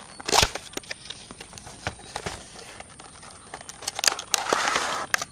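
Cardboard box being pried open by hand: a sharp rip of the flap about half a second in, scattered clicks and scrapes, then a louder rustle of the packaging near the end.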